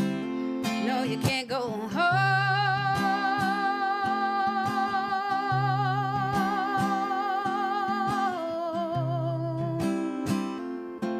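Acoustic guitar strumming under a woman's wordless sung note that slides up and is held long with vibrato, dropping to a lower held note about eight seconds in.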